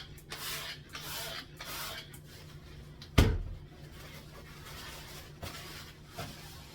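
A kitchen cabinet door knocks shut once, about three seconds in; it is the loudest sound. Before it come several short, soft rustling hisses of handling and wiping.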